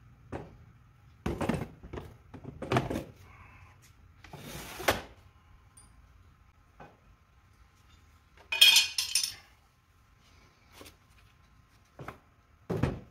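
Heavy batteries being handled and shifted on a mower's metal battery tray: scattered knocks and thuds, a short scrape, and a bright clatter about two-thirds of the way through, the loudest sound.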